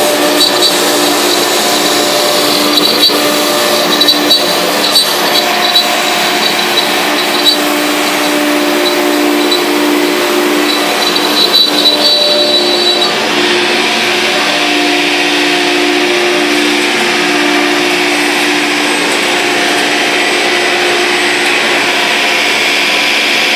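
Thermwood 3-axis CNC router running, with its spindle and vacuum pump going: loud, steady machine noise with slightly shifting tones. An on-and-off high whine drops out about halfway through, and the sound turns to a more even hiss.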